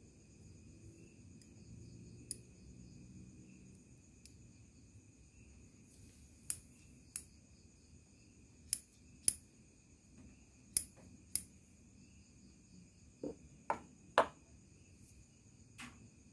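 Kaneshin No. 35E steel bonsai scissors worked open and shut, the blades snapping with sharp clicks, mostly in pairs. Near the end come a few louder knocks as the scissors are laid down on a wooden floor. Crickets chirr steadily behind.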